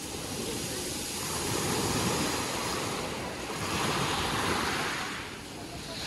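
Sea waves washing onto a pebble beach, the surf swelling and easing every couple of seconds.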